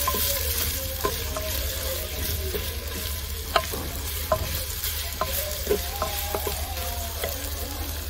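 Sliced onions sizzling in hot oil in an unglazed clay handi, being fried until brown, while a wooden spoon stirs them with irregular knocks and scrapes against the pot.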